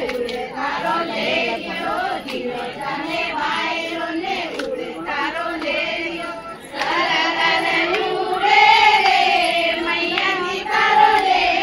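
A group of women singing together, with hand claps among the voices. The singing dips briefly and then grows louder about seven seconds in.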